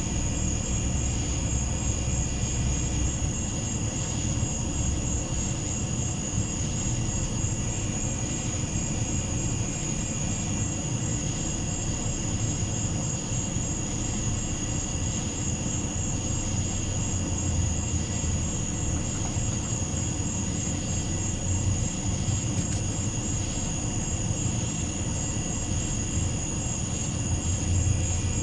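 Steady chorus of night insects, a high, finely pulsing trill, over a constant low rumble.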